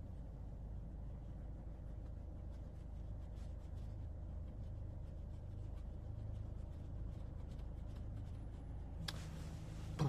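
Faint, steady low background rumble with scattered light clicks. Near the end, a short rush of breath-like noise, then a person starts humming one low held note.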